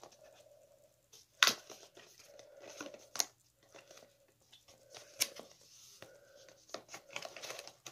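Paperboard razor-kit box being handled and turned over, the cardboard rustling with a few sharp scrapes, the loudest about a second and a half in.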